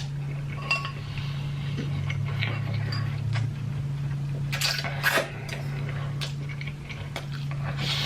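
Cutlery clinking and tapping against dishes while eating, scattered light clicks with a brighter cluster of clinks about five seconds in, over a steady hum.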